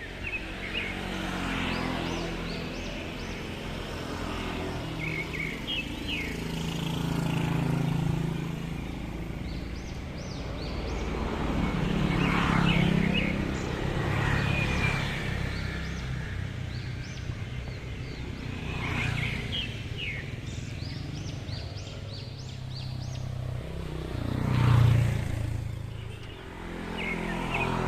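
Motor vehicles passing one after another on a road, each engine hum swelling and fading, with the loudest pass near the end. Short high bird chirps come through between and over the passes.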